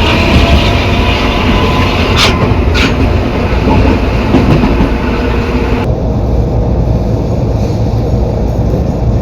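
Metro car's traction motor and inverter whining and rising in pitch as the train accelerates, over a heavy low rumble that carries the growl of a reduction gearbox. There are two sharp knocks a little after two seconds in, and about six seconds in the higher sounds cut off abruptly, leaving the rumble.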